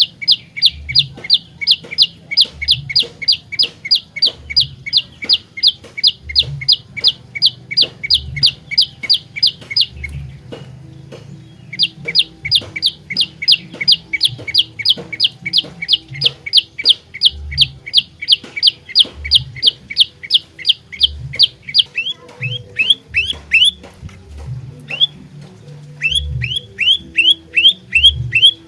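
Prenjak lumut songbird calling in long, fast runs of sharp, high, repeated notes, about four a second. The runs break off briefly about ten seconds in. Near the end they give way to shorter bursts of sweeping notes.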